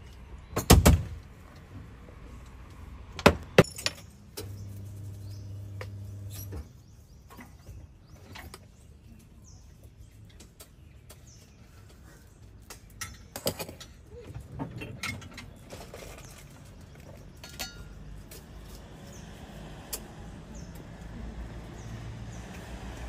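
Barista's work sounds: scattered clinks and knocks of a metal spoon, a stainless milk pitcher and utensils against a plastic cup and counter. A steady electric hum runs for about two seconds, starting about four and a half seconds in.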